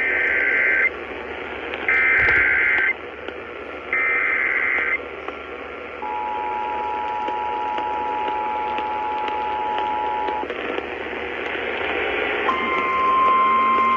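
Emergency Alert System tornado-warning alert heard over AM radio with static: three one-second bursts of digital data header, then the two-tone attention signal held for about four seconds. A single steady tone begins near the end.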